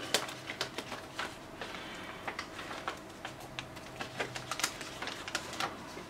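HP Pavilion G7 laptop booting Windows: irregular light clicks and ticks, typical of its hard drive seeking, over a low steady hum.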